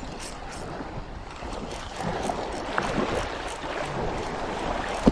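Small waves lapping and washing at the water's edge, growing a little louder about two seconds in, with one sharp click near the end.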